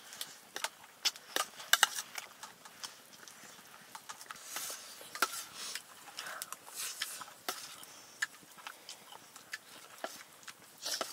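Eating by hand from a steel plate: irregular sharp clicks and scrapes of fingers on the metal, with close-up chewing and lip-smacking.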